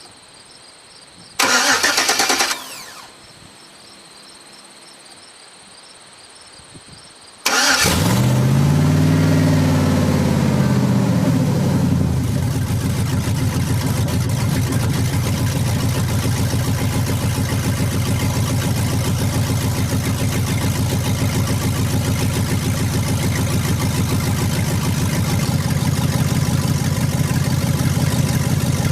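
GM 5.3-litre Vortec V8 starting after a short loud burst about a second and a half in. About seven and a half seconds in it fires, flares up in revs, and settles into a steady idle a few seconds later.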